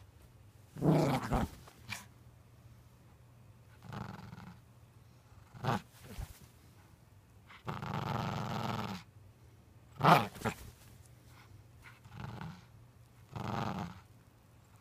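Small maltipoo (Maltese–poodle cross) dog growling in play while tugging at a plush toy. The growls come in separate bursts, about seven in all, and the longest lasts just over a second.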